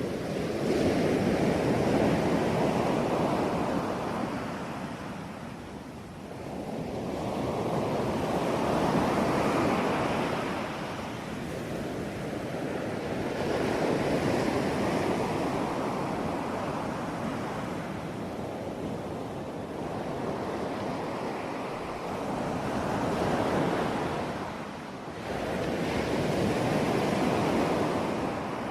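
Ocean waves breaking on a shore, one after another, each crash swelling and then washing back over several seconds.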